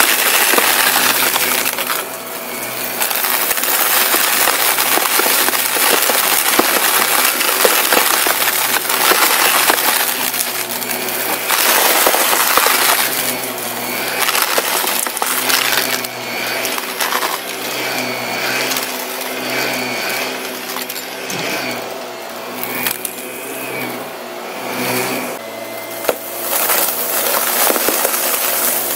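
Shark upright vacuum cleaner running on carpet, its motor humming steadily while it sucks up scattered confetti and crunchy debris. The debris rattles and crackles through the floor head, louder and softer as the vacuum passes over thicker patches.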